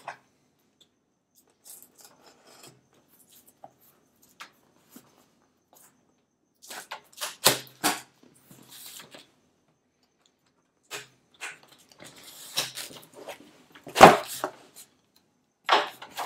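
Cardboard shipping box being opened: a box cutter nicks and slits the packing tape, then the cardboard lid and flaps scrape and rustle as they are pulled open, with a single louder thump late on.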